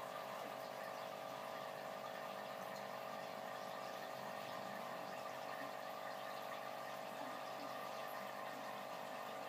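A steady mechanical hum with a few fixed tones over a faint even hiss, unchanging throughout.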